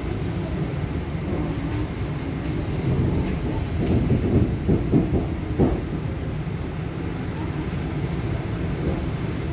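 EP2D electric train running along the track, heard from inside the carriage: a steady low rumble of wheels on rail, with a few louder knocks over the rail joints around the middle.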